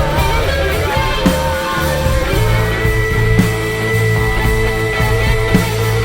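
Psychedelic rock band playing: held guitar notes over a steady low bass, with a drum hit about every two seconds. A high held note comes in about two and a half seconds in.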